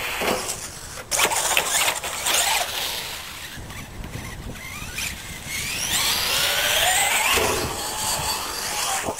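Brushless electric motor and drivetrain of a Traxxas E-Revo RC monster truck whining as it drives on concrete, rising and falling in pitch with the throttle. It gets suddenly louder about a second in and gives a long rising whine around six to seven seconds in as the truck accelerates into a jump.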